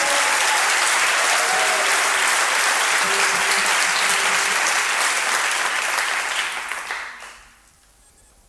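Audience applauding, dense and steady, dying away about seven seconds in.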